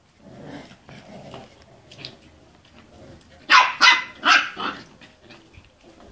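Puppies play-fighting: low growling at first, then four sharp, high barks in quick succession about three and a half seconds in.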